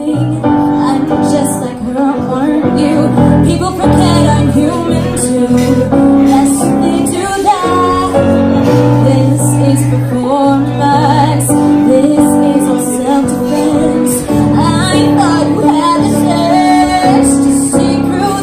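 A woman singing a musical-theatre song into a microphone, accompanied by a Yamaha keyboard playing sustained chords.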